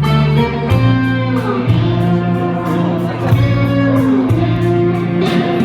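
Band music led by guitar, over a bass line that changes note every second or so and a steady drum beat.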